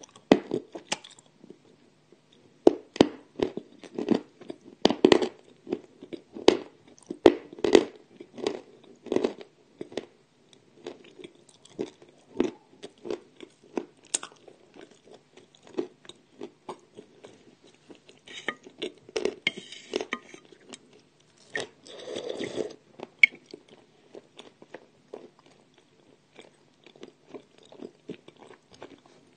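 Close-up crunching and chewing of edible clay: a run of sharp, crunchy bites in the first ten seconds or so, then softer, quieter chewing, with two longer, noisier crunches past the middle.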